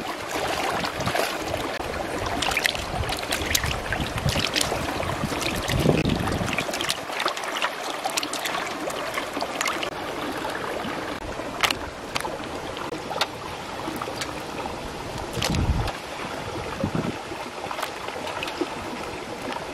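Steady rush of running stream water with scattered short splashes and wet clicks from live Siamese spiny eels squirming and being handled in water, and a few low thumps.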